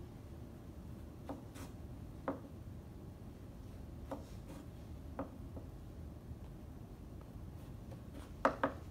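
Knife cutting a carrot on a plastic cutting board: a few separate knocks of the blade on the board, a second or two apart, with a quick pair near the end that is the loudest.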